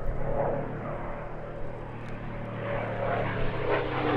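P-51D Mustang's Packard Merlin V12 engine and propeller as the fighter flies its display, a steady drone that grows louder about three seconds in.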